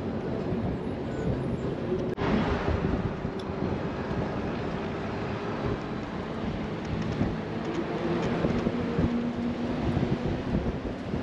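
A bus under way, heard from inside the cabin: the engine hums steadily over road rumble, and there is a sharp knock about two seconds in.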